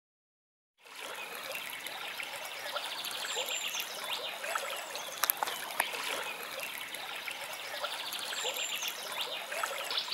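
Water trickling steadily, starting about a second in, with a couple of sharp ticks midway and faint high chirps twice.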